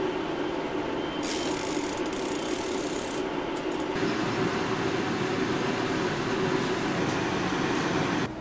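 Steady city street noise: a constant traffic rumble with a hiss that grows from about a second in.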